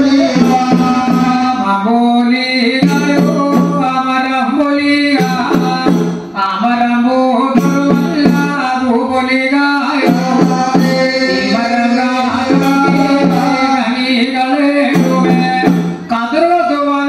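Music: a voice singing over drums and percussion in a steady, repeating rhythm, with two brief drops in level, about six seconds in and near the end.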